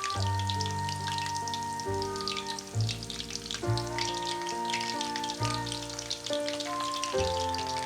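Food frying in a pan, with steady crackling and sizzling, under background music of sustained notes that change every second or so.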